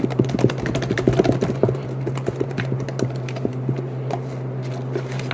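Slime being poked rapidly with fingers, making quick sticky clicks and pops. They come thick and fast for about two seconds, then more sparsely.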